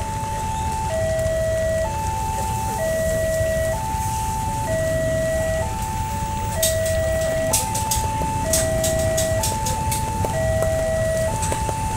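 Railway level-crossing warning siren sounding its two-tone call: a higher and a lower tone alternate, each lasting about a second, warning that a train is approaching. It plays over a steady low rumble, with a run of sharp clicks a little after the middle.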